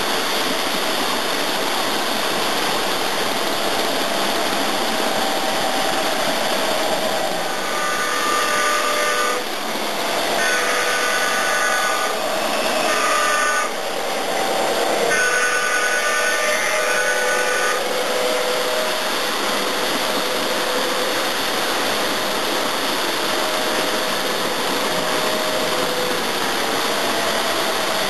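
An O-gauge model locomotive's electronic sound unit sounds a multi-note whistle in the grade-crossing pattern (long, long, short, long) over a steady loud hiss of running noise.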